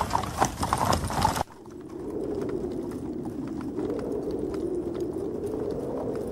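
Horses' hooves clattering in a dense run of hoofbeats, which stops abruptly after about a second and a half. A steady, slowly wavering drone follows, with faint ticks.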